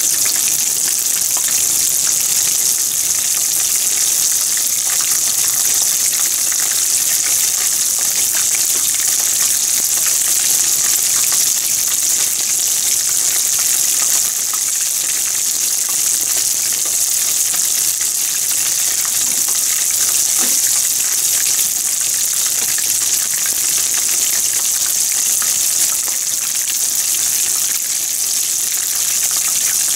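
Panko-breaded pieces deep-frying in a pan of hot oil: a steady, dense sizzle of bubbling oil with fine crackling throughout.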